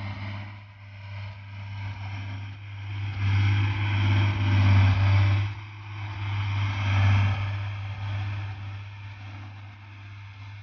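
Single-drum road roller's diesel engine running steadily with a low hum as the machine drives past, loudest in the middle and fading as it moves away near the end.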